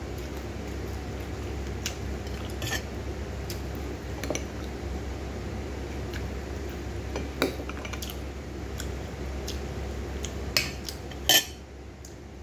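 Metal spoon clinking and scraping against a ceramic plate in scattered short clicks, the loudest two near the end, over a steady low hum.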